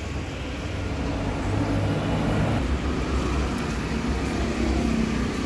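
Road traffic: motor scooters' small engines running as they ride up the street, over a steady low traffic rumble.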